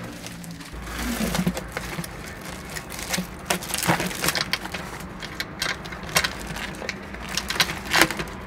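Flexible foil air ducting crinkling and crackling as it is handled and pushed through a window opening: irregular sharp crackles, over a low steady rumble.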